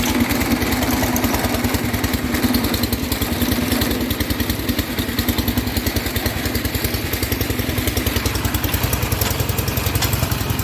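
John Deere garden tractor's engine idling steadily just after being started, with an even, rapid firing pulse.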